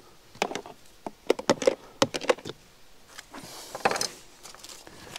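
A string of sharp clicks and light knocks from cooking gear and containers being handled on a camp table, several in quick succession in the middle, with a brief scrape near the end.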